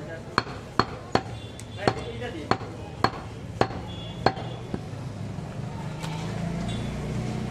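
Butcher's cleaver chopping goat meat on a wooden log chopping block: about nine sharp chops at an uneven pace of roughly two a second, stopping about five seconds in.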